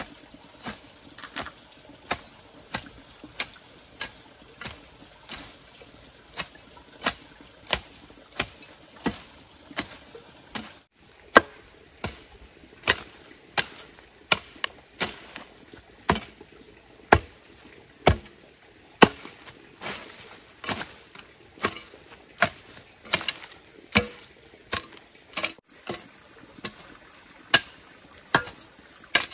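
Regular chopping strikes of a blade cutting bamboo, about one and a half a second. Under them runs a steady, high insect drone.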